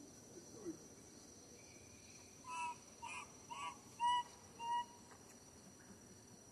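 A steady, thin, high insect whine, with a run of five short, clear pitched calls from an animal between about two and a half and five seconds in.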